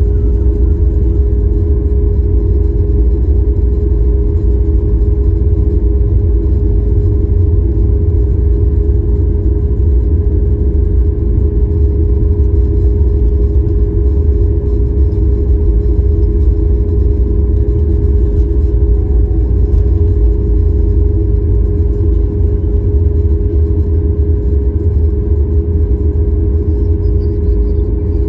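Cabin noise of a Boeing 737 airliner taxiing: the jet engines running at low thrust as a steady low rumble with a constant humming tone over it, heard from inside the cabin.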